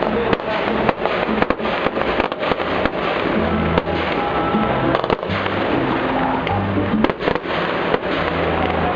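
Fireworks bursting and crackling, many sharp bangs close together, with music and its bass notes playing underneath.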